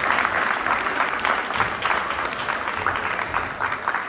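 Audience applauding, a dense patter of hand claps that slowly thins out and grows quieter toward the end.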